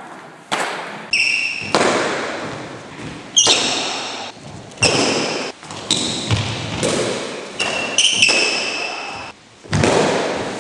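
Fighting sticks striking sticks, gloves and helmets in sparring: about ten sharp cracks and thuds roughly a second apart, some with a brief metallic ring, each trailing off in the hall's echo.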